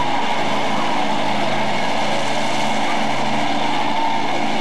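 Pickup truck engine running at a steady, unchanging pitch.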